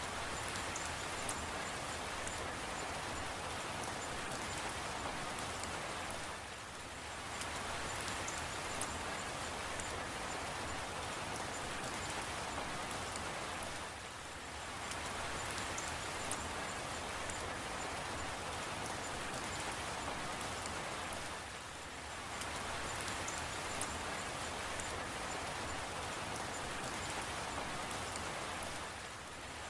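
Steady rain falling: an even hiss of rain with fine ticks of individual drops. It eases briefly and regularly about every seven and a half seconds.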